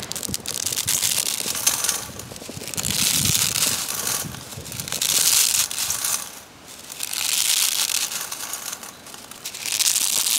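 Dry, unroasted vermicelli snapping and crackling as hands break a bundle into short pieces, the bits falling onto a stainless steel plate. The crackling comes in about five rounds, roughly two seconds apart.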